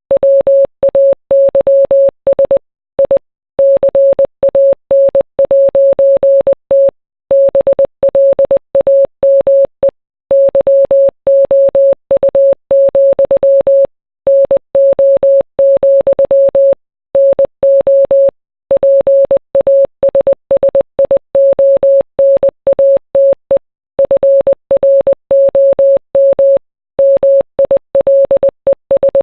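Morse code sent as a single steady beep keyed on and off in short and long pulses (dots and dashes), with brief silent pauses every few seconds between words. It spells out song lyrics.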